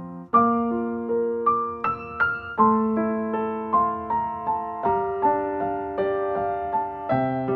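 Gentle background piano music, single notes and chords struck about every half second and left to ring.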